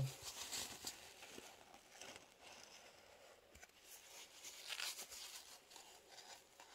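Faint rustling and scratchy wiping as wet acrylic paint drips are wiped off the underside of a freshly poured tile, in a few short swipes, the loudest about half a second in and around five seconds in.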